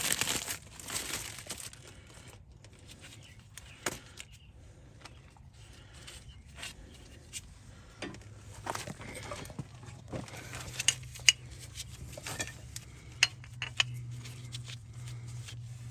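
Scattered metallic clicks and clinks of tools and parts being handled during brake work. A low steady hum comes in about halfway and grows louder near the end.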